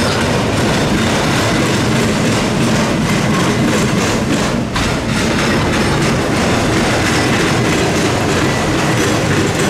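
Freight train of autorack cars rolling past close by: steady rumble and clatter of steel wheels on the rails.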